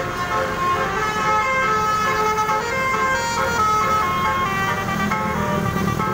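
Indonesian bus "telolet" musical air horn playing a quick tune of stepping notes, over the rumble of passing motorcycles and traffic.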